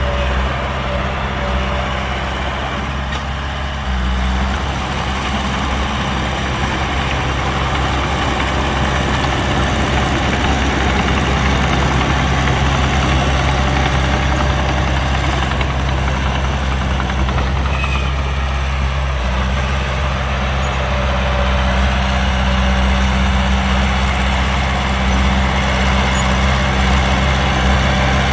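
Heavy diesel engine of earth-moving equipment running steadily at low, even revs.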